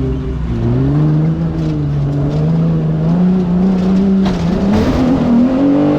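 Off-road race vehicle's engine pulling under load, its pitch climbing steadily as it accelerates. About four seconds in it drops briefly with a rush of noise, then rises again.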